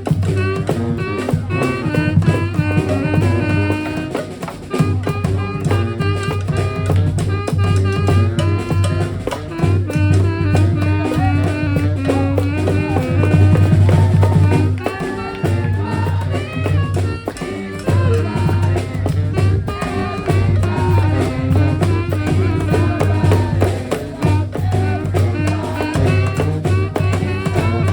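Live street brass band playing: horns sounding held and moving notes over a low bass line that pulses on and off, with drums keeping a steady beat.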